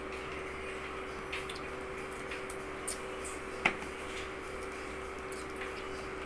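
Eating sounds: a few short, wet smacks and clicks from chewing and from fingers handling food, the sharpest about three and a half seconds in, over a steady low hum.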